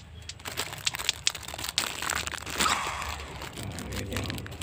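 Plastic toy packaging rustling and crinkling as it is handled, with scattered short crackles and ticks, densest near the middle.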